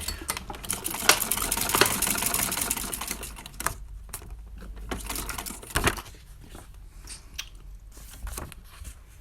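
Heavy-duty electric sewing machine running fast, its needle punching rows of perforations through paper with a rapid clatter. After about three and a half seconds it stops, leaving scattered clicks and paper rustles.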